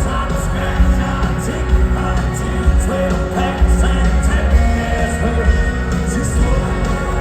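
A live country band playing with a steady drum beat and heavy bass, with singing over it.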